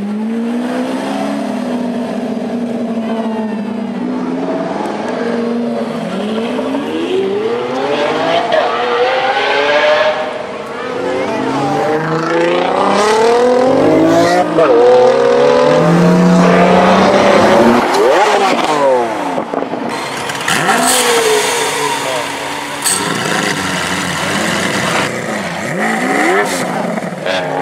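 Supercar engines, among them a tuned Lamborghini Aventador's V12, accelerating hard. The revs climb in repeated rising sweeps and drop back at the gear changes, loudest about halfway through. In the last few seconds there are several sharp pops.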